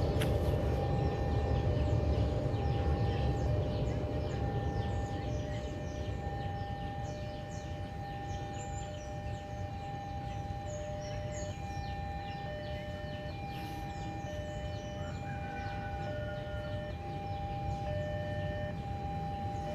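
A siren-like electronic warning tone of several held notes that switch on and off in a pattern, over a low rumble that fades over the first few seconds.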